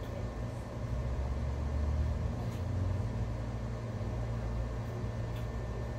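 A steady low mechanical hum, with a couple of faint clicks.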